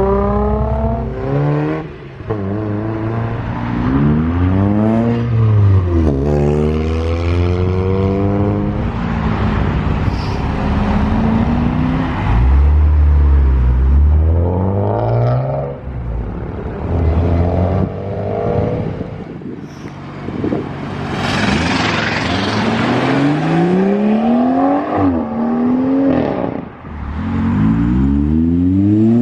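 Several sports cars accelerating hard away one after another, engines revving up through the gears with the pitch dropping back at each upshift. A stretch of loud hiss comes about three quarters of the way through.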